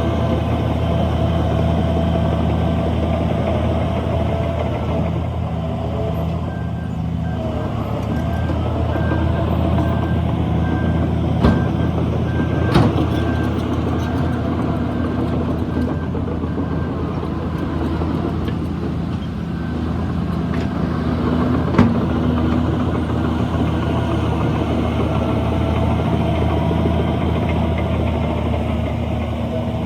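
Heavy diesel earthmoving machinery running steadily under load. From about six seconds in, a reversing alarm beeps in a regular pulse, and a few sharp metallic knocks come in the middle.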